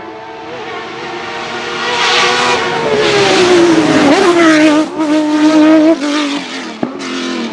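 Hillclimb sports prototype race car at full throttle, growing louder as it approaches, its engine note sliding down as it passes, then several quick upshifts that cut the note briefly as it accelerates away.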